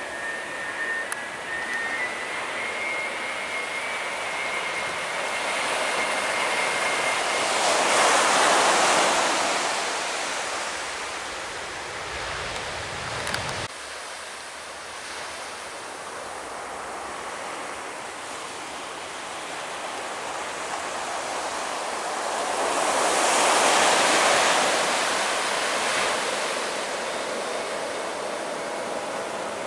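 Surf breaking on a beach, a steady hiss that swells up twice, with distant jet airliner engine noise and a faint high engine whine in the first few seconds. The sound changes abruptly about halfway through.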